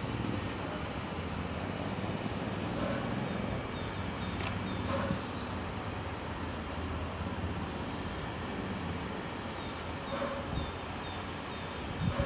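Distant Tk3 steam locomotive working as it pulls away, heard as a steady low rumble of steam and exhaust. Faint bird chirps come and go above it, and a brief thump sounds near the end.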